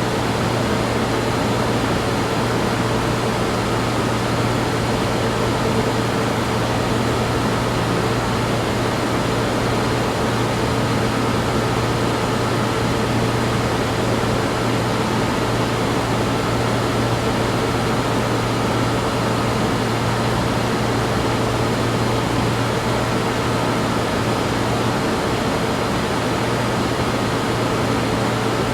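Science-fiction laboratory ambience: a steady machine hum with a low drone and a few faint constant tones over an even hiss, unchanging throughout.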